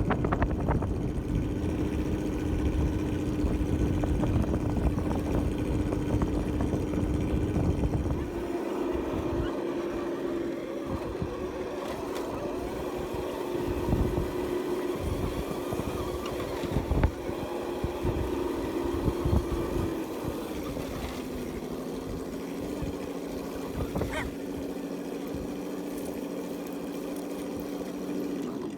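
Electric motor and gearbox whine of an Axial SCX10 RC crawler, held at a steady pitch that steps up about eight seconds in and drops about twenty seconds in, with scattered knocks. Wind buffets the microphone with a heavy rumble for the first eight seconds.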